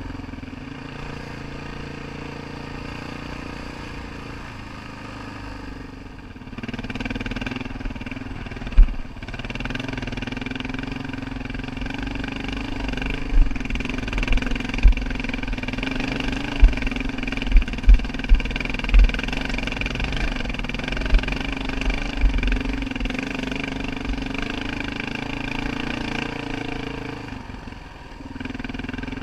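Motorcycle engine running on a dirt trail, pulling harder from about six seconds in. From about nine seconds in, a string of sharp low thumps comes as the bike jolts over a rocky stretch, and the engine eases back near the end.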